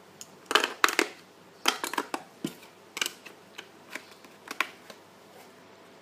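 AA batteries being pressed into the plastic battery compartment of a FlySky FS-i6X radio transmitter: a run of sharp, irregular clicks and knocks. The last clicks, about four and a half seconds in, come as the battery cover is fitted over the compartment.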